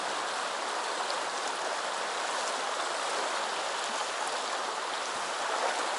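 Shallow stream running over a stony bed, a steady rush of water close by.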